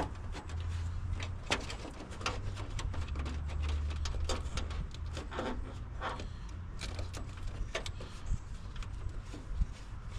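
Scattered clicks, rattles and brief squeaks of hands working plastic and metal truck parts, feeling for the wiring harness behind a headlight in the grille. A low steady rumble runs underneath.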